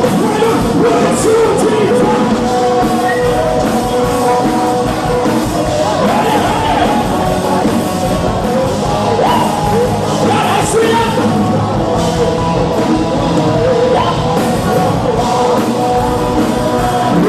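Rock song with a singer and full band: held sung notes over steady drums and guitars, with some yelling.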